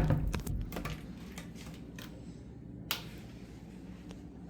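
A low thump right at the start, then scattered light clicks and knocks, with one sharper click about three seconds in.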